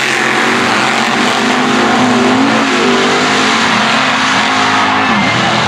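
Mud truck engines running hard at full throttle as the trucks race across a dirt track: a loud, steady engine note that wavers and drops in pitch a little after five seconds in.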